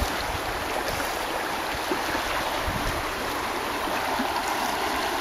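Shallow stream riffle: water rushing steadily over the rocks.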